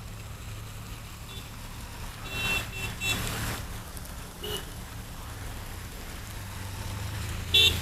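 Harley-Davidson Sportster 883's air-cooled V-twin idling at a standstill, a low steady throb. Short horn beeps from surrounding traffic sound a few times, about two to three seconds in, again at about four and a half seconds, and near the end.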